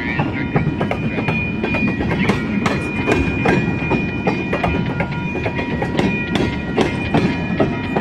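Freight train of covered hopper cars rolling past close by, its wheels rumbling and clicking irregularly over the rail joints, with a thin steady high tone above the rumble.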